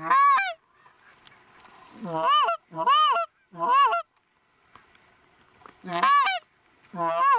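Canada goose honks, loud and close, most likely from a hunter's short-reed goose call drawing in an approaching flock. Six separate honks come in loose groups, each a short note that rises and falls in pitch.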